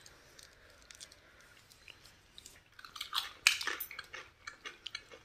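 A person chewing a mouthful of homemade cheese pizza close to the microphone. It is quiet at first, then a run of sharp chewing clicks comes about three seconds in, loudest midway through.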